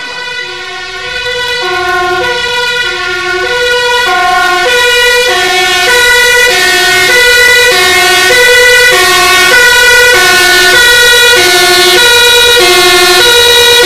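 Fire engine's two-tone siren alternating steadily between a low and a high note, growing louder over the first several seconds as it approaches, then staying loud.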